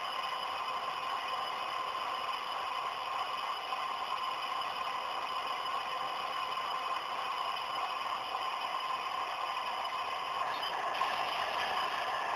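Model AC6000 diesel locomotive running slowly along tabletop track: a steady electric motor whine over the running noise of its wheels on the rails.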